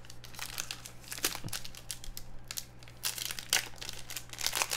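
Football trading-card pack wrapper crinkling and tearing as it is opened and handled, a run of quick, irregular crackles.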